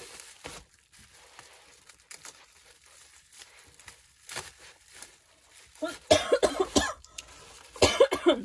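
A woman coughing in two bouts, one about six seconds in and one near the end. Before them, faint crinkling of bubble wrap being handled.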